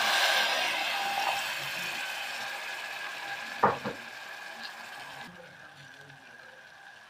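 Water poured into a hot stainless steel pot of fried onions and tomato, hissing and sizzling loudly, the sizzle dying away over several seconds to a faint simmer. Two sharp knocks a little past the middle.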